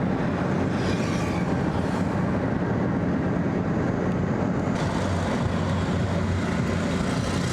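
Steady rumble of a car's engine and tyres on the road, heard from inside the moving car.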